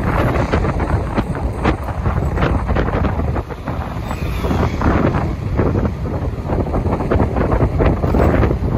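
Heavy wind buffeting on the microphone: a loud, irregular rushing over a steady low rumble.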